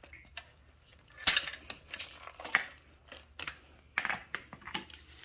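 Scattered clicks and clinks of hard plastic and metal parts being handled as an EVAP canister and its hoses are worked free of a motorcycle's frame, the loudest knock about a second in.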